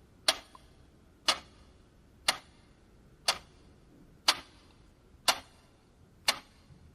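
Clock ticking a countdown, one sharp tick each second.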